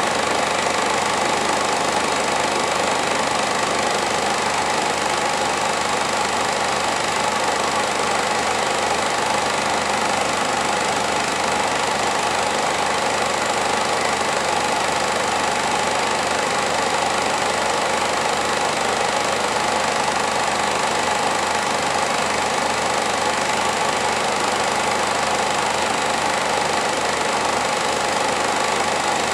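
Film projector running: a steady mechanical whirr and clatter that does not change.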